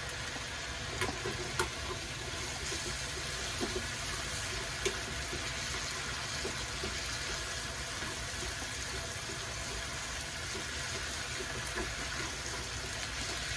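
Squid, pork and vegetable stir-fry sizzling in a frying pan with a steady hiss, with a few light clicks of chopsticks against the pan in the first five seconds.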